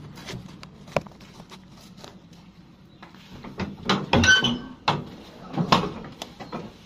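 Irregular knocks and clattering of objects being handled, louder and busier from about halfway through, with a short squeak in the middle.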